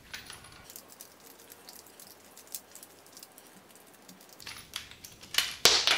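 Hand-held wheel pipe cutter turned round and round a 16 mm aluminium-layered PE-X pipe, giving faint light clicks, with a clatter of louder sharp clicks in the last second and a half.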